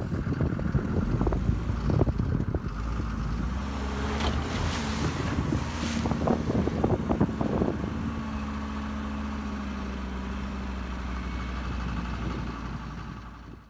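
Heavily loaded 4x4 truck's engine running while driving over soft sand, with irregular knocks and rattles over the first half, then a steady drone that fades out near the end.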